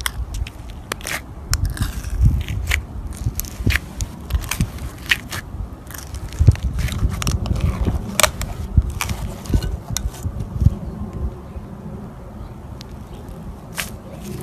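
Slime being squeezed and pressed by hand, with irregular crackling pops and clicks over a low squishing handling sound; the pops thin out after about ten seconds.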